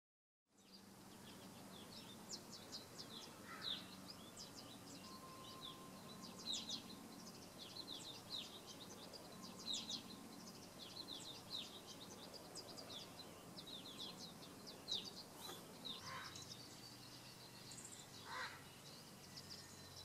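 Small birds chirping, many quick high chirps coming in irregular runs, starting about half a second in, over a faint low hum.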